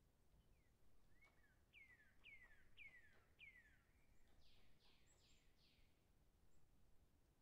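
Faint bird calls over near silence: four descending chirps about half a second apart, then four broader, rougher downward notes in quick succession.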